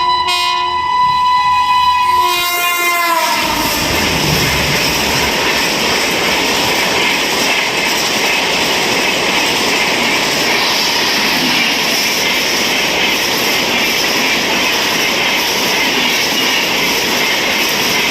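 Train horn sounding, bending down in pitch and stopping about three seconds in, then the loud, steady running noise of a train.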